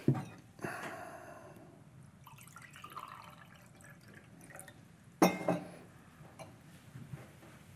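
Glass clinking with water being poured. Sharp clinks at the start and about five seconds in, and a ringing clink just under a second in.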